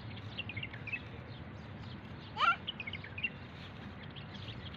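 Small birds chirping over and over, with one louder rising call about halfway through, over a low steady rumble.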